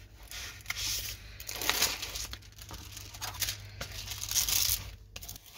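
Clear plastic cover film on a diamond painting canvas crinkling and rustling as it is smoothed down over the sticky canvas by hand and with a plastic scraper. It comes in several uneven swipes.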